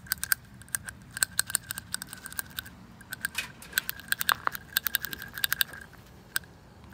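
Rapid, irregular metallic clicking and tapping from hand-tool work on metal, with a faint ringing tone under the clicks that stops twice.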